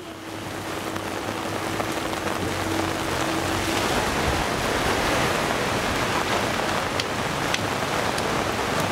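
Steady rain falling, growing louder over the first few seconds.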